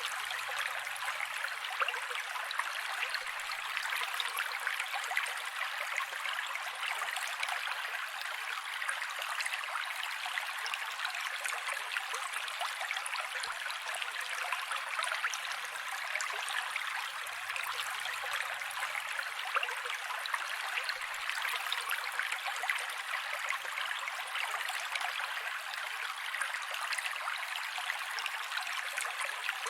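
Mountain creek water running steadily over rocks, an even rushing with many small splashes throughout.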